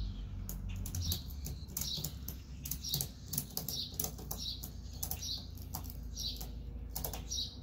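A red tie-down strap being cinched around a kayak and its wheeled cart: a string of irregular clicks and rattles from the strap's buckle as it is worked tight.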